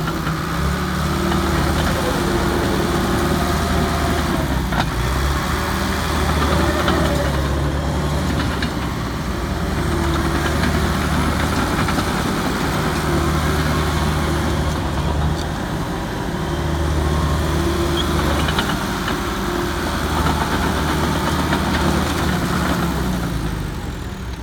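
John Deere 450J LGP crawler dozer's diesel engine running steadily, its note shifting slightly every few seconds.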